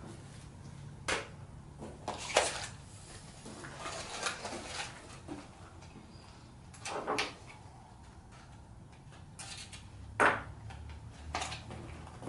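A few short clicks and clatters of small tools and materials being handled at a workbench, about six spread over the stretch, over a faint steady low hum.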